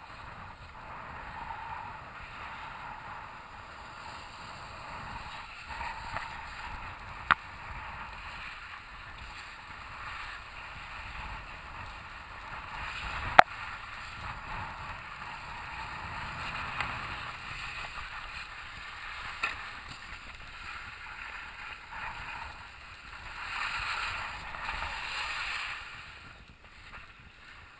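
Snowboards sliding and scraping over snow, a steady hiss that swells and fades, with a few sharp knocks, the loudest about 13 seconds in.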